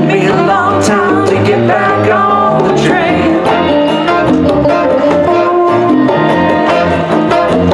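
Live band playing a song, with electric and acoustic guitars, bass, saxophone and hand drums, at a steady loud level.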